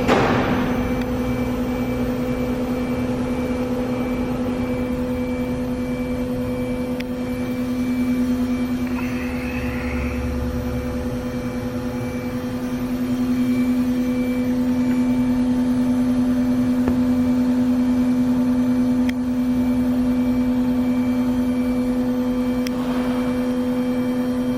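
High-speed spindle of a Mikron HSM-400U 5-axis machining center running at about 15,000 rpm, a steady, even whine.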